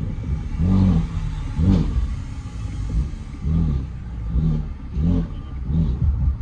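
BMW M3 F80's twin-turbo straight-six with an equal-length exhaust, revving up and dropping back in about six short bursts, as when the gears are worked by hand like a manual.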